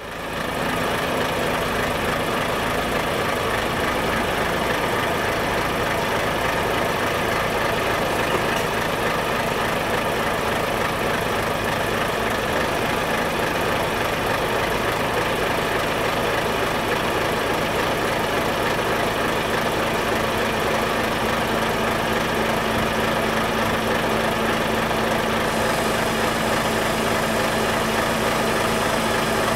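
Volvo FH truck's 12.1-litre D12D inline six-cylinder diesel running steadily at idle. It fades in at the start, and a faint high hiss joins near the end.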